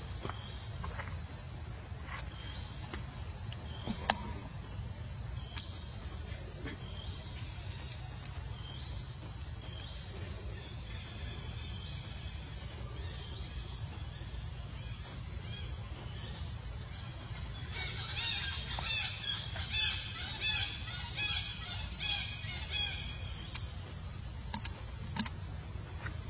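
Outdoor forest ambience with a steady high hiss, and a bird calling in a quick run of repeated chirps in the last third.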